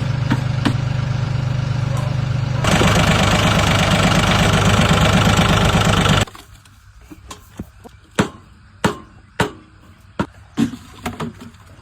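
An engine running steadily, then louder and fuller from about three seconds in, and cutting off abruptly about six seconds in. It is followed by a series of sharp knocks.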